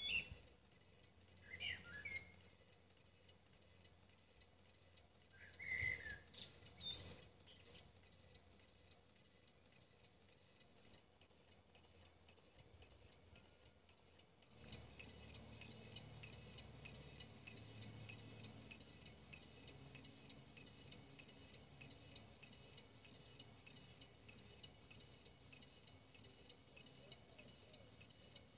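Very quiet outdoor background with a few short bird chirps in the first seven seconds. About halfway through, a faint steady hum with a thin high whine comes in and carries on.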